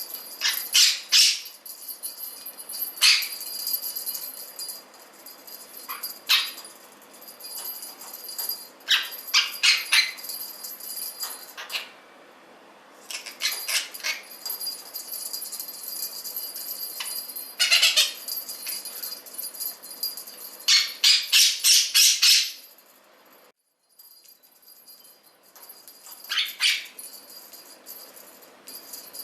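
A Quaker parrot screeching in short loud bursts while shaking its metal toy bell, which rings steadily between the calls and falls silent twice for a moment.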